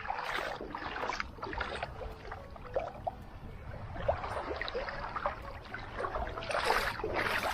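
Shallow water splashing and sloshing in uneven bursts, the loudest splashes near the end.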